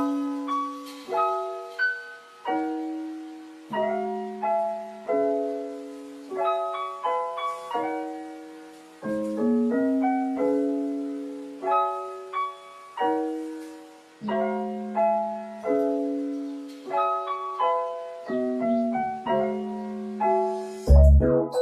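Background music: a slow, gentle piano melody of single struck notes that ring and fade, played over soft chords.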